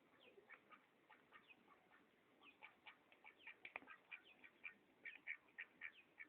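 Duck quacking in a fast run of short calls, faint at first and getting louder and quicker from about halfway, with a single sharp click in the middle.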